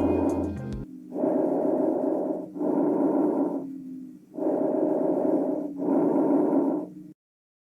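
Normal bronchovesicular breath sounds from a chest auscultation recording: a soft rushing noise in alternating inspiratory and expiratory phases of about equal length, about two full breaths. It cuts off abruptly near the end.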